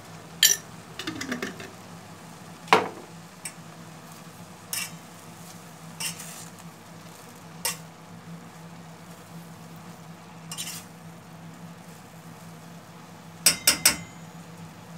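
Metal spoon stirring greens in a stainless steel pot, scraping and clinking against the sides every second or two, with four quick knocks near the end. A low sizzle of the greens frying runs underneath.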